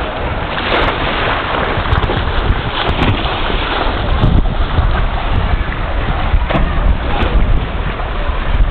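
Wind rumbling on the microphone over the wash of choppy sea water.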